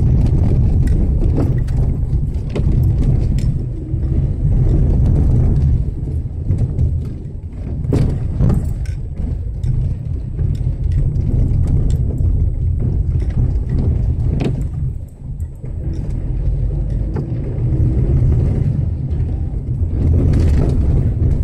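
A car driving over wet, rough road, heard from inside the cabin: a steady low rumble of engine and tyres, broken by occasional short knocks and rattles.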